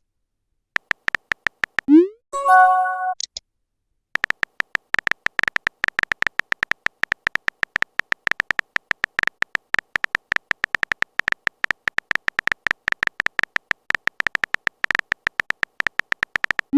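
Rapid electronic beeping at one high pitch, many short beeps a second, starting about four seconds in. Before it, about two seconds in, comes a short rising sweep followed by a brief synth-like tone.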